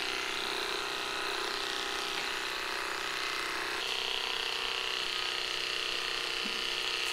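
Electric dog-grooming clippers running with a steady buzzing hum; the tone shifts slightly about four seconds in.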